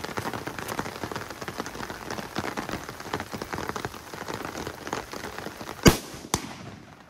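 Steady rain falling, then a single rifle shot about six seconds in, with a fainter sharp crack about half a second after it.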